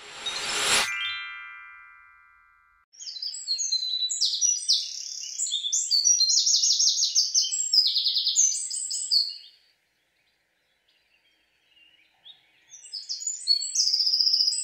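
A swelling whoosh ending in a ringing chime that fades over about two seconds, then songbirds chirping and trilling in quick repeated phrases. The birds fall quiet for a couple of seconds, then sing again near the end.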